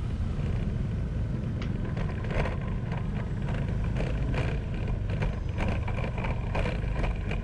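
Riding a motorbike through city traffic: steady road and engine noise with a low wind rumble on the microphone, and faint passing traffic sounds.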